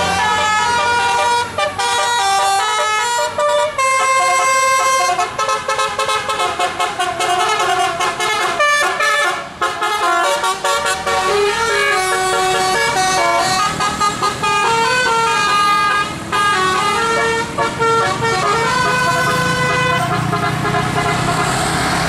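Bus 'telolet' musical air horn playing a tune: a quick run of stepped horn notes, one after another.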